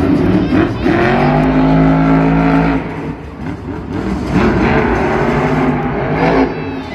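Monster truck's supercharged V8 engine revving: the revs are held steady for a couple of seconds, drop back, then climb again.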